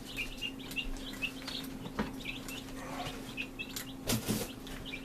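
Baby chicks peeping in quick, repeated short chirps over a steady low hum, with a knock about two seconds in and a louder handling thump about four seconds in.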